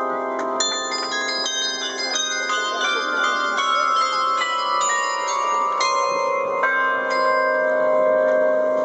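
Carillon playing a melody: bronze bells struck several times a second, each note ringing on over a lasting low bell tone.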